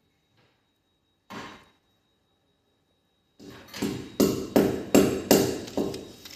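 A single knock about a second in, then, from about halfway, a fast regular run of sharp ringing strikes, nearly three a second.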